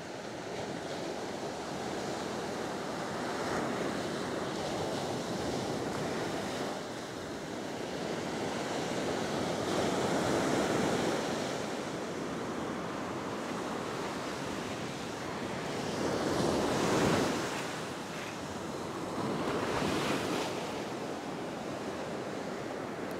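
Ocean surf breaking and washing up a sandy beach, swelling and fading with each wave, loudest about two-thirds of the way in.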